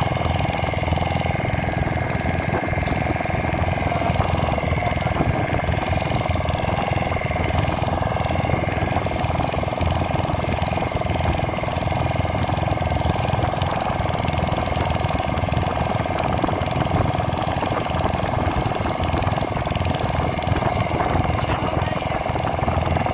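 Fishing boat's engine running steadily, a loud, even low chugging rumble.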